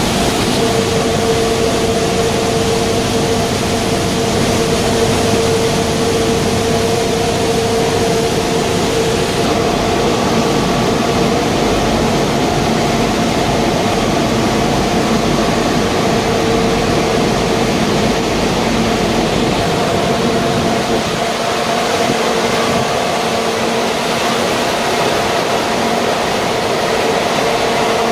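Waste-tire rubber powder production line running: fine-powder grinding mills and their electric motors give a loud, steady mechanical drone with a steady hum.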